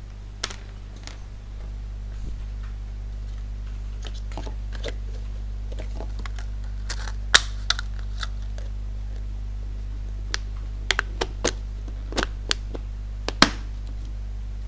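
Clear plastic cup and lid being handled on a desk: a dozen or so scattered sharp clicks and taps, the loudest about seven and thirteen seconds in, over a steady low hum.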